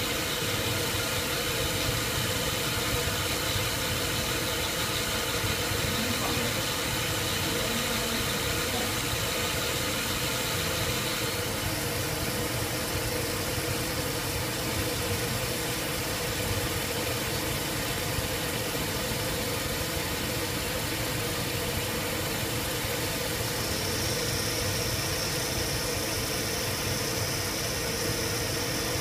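Pump motor running steadily with a mechanical hum while pressure builds in the pipework. A faint high whine joins near the end.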